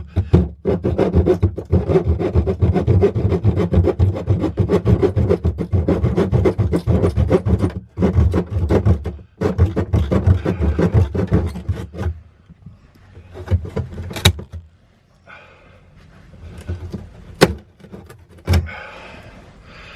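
Reciprocating saw cutting through PVC pipe, running in long rapid strokes with two brief stops, then shutting off about twelve seconds in. A few sharp knocks follow as the pipe is handled.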